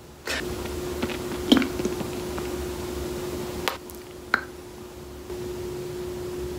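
Handling noise of a phone camera being moved around: rustling and a few sharp knocks, the loudest about a second and a half in, over a steady low hum.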